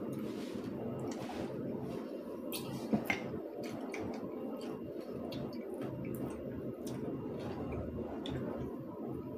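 Close-up eating sounds: wet chewing and smacking, with scattered sharp mouth clicks and two louder clicks about three seconds in, over a steady low hum.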